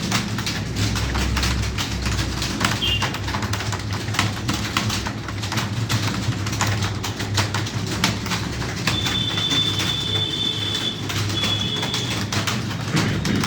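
Computer keyboards clicking in a fast, continuous patter of keystrokes over a low steady hum. A thin high steady tone sounds for about two seconds in the second half.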